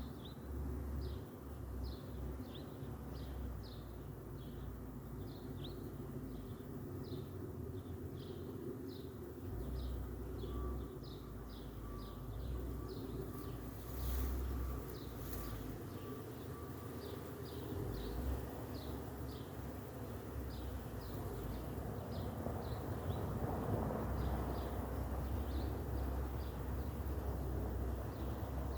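Many bees buzzing in a tree, a steady hum, with a small bird repeating short high chirps about twice a second.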